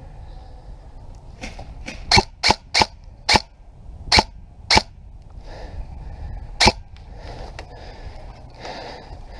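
Airsoft rifle firing single shots, about seven sharp cracks irregularly spaced over roughly five seconds, with faint rustling in between.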